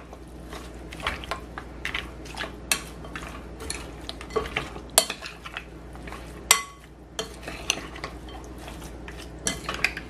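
A metal spoon stirring boiled pig's-foot pieces with sliced onions and seasonings in a glass bowl. Irregular clinks and scrapes of the spoon against the glass run under the sound of the ingredients being turned over. One clink, about six and a half seconds in, rings on briefly.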